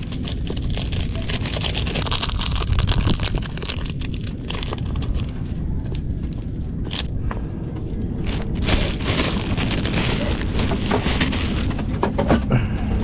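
Hands mixing and kneading homemade masa bait dough for milkfish, giving irregular crunching and scraping, over a steady low rumble.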